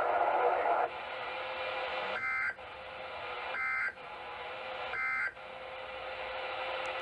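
NOAA Weather Radio received over a radio: three short warbling data bursts about 1.4 seconds apart over steady receiver hiss. This is the Emergency Alert System end-of-message code that closes the Required Weekly Test.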